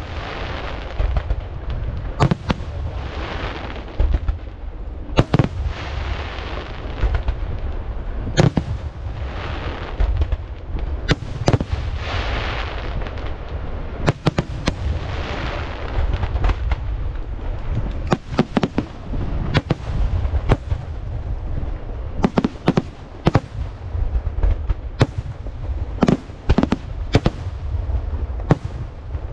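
Aerial firework shells bursting in an irregular series of sharp bangs, some in quick clusters, over a continuous low rumble, with stretches of crackling between the bangs.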